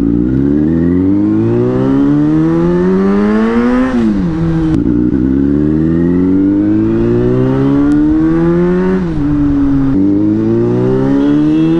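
Sport motorcycle engine accelerating through the gears, its pitch climbing steadily and dropping sharply at an upshift about four seconds in and again about nine seconds in, then climbing once more.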